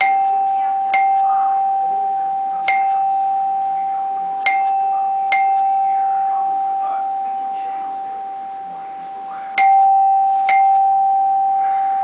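Doorbell chime driven by a Simplex 4263 coded pull station, its plunger striking a tone bar to ring out the station's code. Each strike leaves one ringing tone that slowly fades. The strikes fall in groups of two, one and two, then a longer pause before the code repeats.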